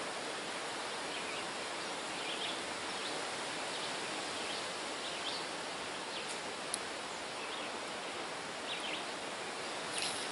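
Steady outdoor background noise of wind and moving river water beside a wooded river, with scattered faint short chirps, one sharp tick about two-thirds of the way through, and a brief sharper rustle near the end.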